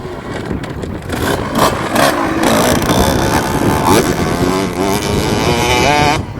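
KTM SX 65's 65cc two-stroke single-cylinder engine with its stock exhaust, revved repeatedly, the pitch rising and falling and climbing highest near the end before it cuts off suddenly.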